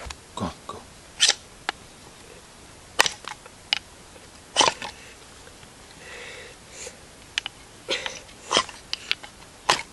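A ferro rod (fire steel) scraped hard with a striker in short, sharp rasps, about a dozen at uneven intervals. These are attempts to throw sparks onto cotton-pad tinder that keep failing to light it.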